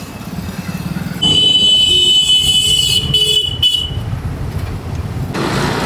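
A vehicle horn sounds one long, high-pitched blast starting about a second in and lasting nearly three seconds, over the steady low rumble of road traffic engines.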